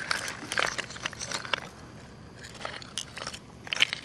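Oyster shells clicking and crackling: irregular sharp clicks, thick in the first second and a half, then sparser, with one loud click near the end.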